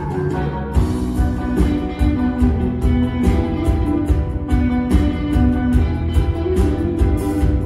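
Live rock band playing an instrumental passage without vocals: a steady drum beat under sustained chords.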